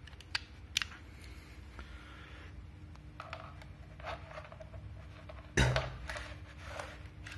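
Power cable and plug being handled: a couple of sharp clicks in the first second, light scraping, and a louder knock about five and a half seconds in.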